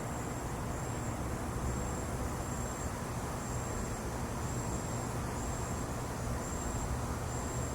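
Night insects trilling: a thin high steady tone that breaks off and resumes every second or so, over a steady low rumble.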